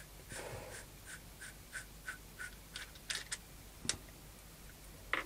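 Steel pull stud being unscrewed by hand from a cut-off 40-taper holder piece, its threads rasping in a regular scratch about three times a second. Then a few sharp metal clicks as the stud and the piece are set down on the steel machine table, the loudest about four seconds in.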